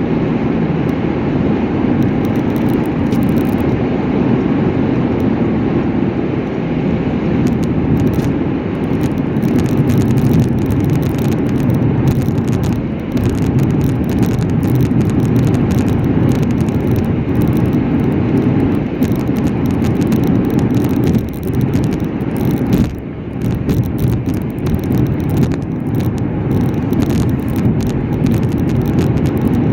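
A car driving along the road: steady low road and tyre noise, with light rattles.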